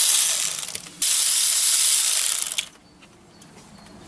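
Two loud hissing blasts from a pressurised jet, the first about a second long and the second nearly two seconds, with a brief break between them.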